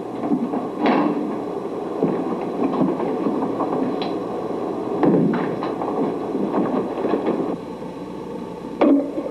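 A steady low rumbling drone, with a few brief louder swells.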